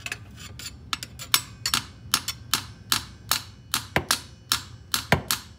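Light hammer taps on a screwdriver pushed through vise grips clamped to the transmission's speedometer angle-drive retaining pin, about two or three quick metal taps a second, used like a slide hammer to draw the stuck pin out.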